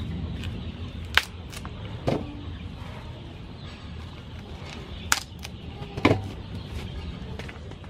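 Ears of white corn being husked by hand, with four sharp knocks as the stripped cobs are dropped into a metal bowl; the loudest, about six seconds in, rings briefly.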